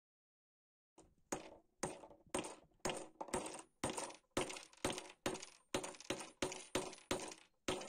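Hammer tapping the tip of a steel screwdriver shaft to drive it into its new glued wooden handle: about fifteen sharp blows, roughly two a second and quickening slightly, each with a short metallic ring. The blows start about a second in.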